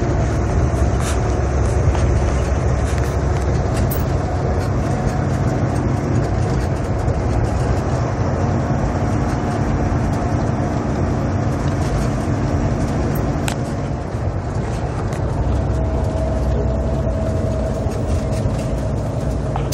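A truck's engine and tyre noise inside the cab while driving steadily: a continuous deep rumble with a faint steady hum above it.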